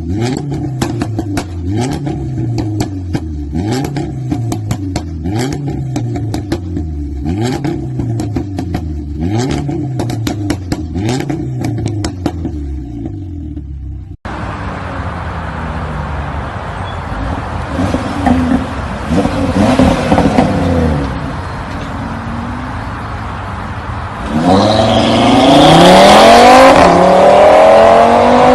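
A car engine and exhaust being revved over and over, the pitch rising and dropping about once a second, with sharp crackles and pops. After an abrupt cut, a second recording of an engine revving higher, with rising sweeps that grow loudest near the end.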